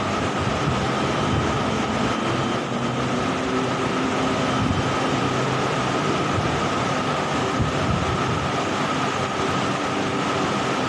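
BTS Skytrain Green Line electric train running: a steady noise with a steady high tone held over it.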